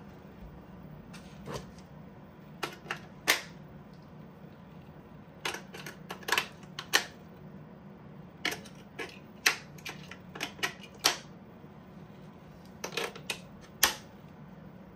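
A dozen or so sharp plastic clicks and snaps in irregular clusters, the sound of AA batteries being pulled from one battery compartment and clicked into another.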